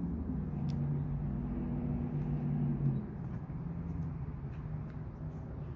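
A steady low engine hum, with pitch shifting slightly about three seconds in, and a faint click about a second in.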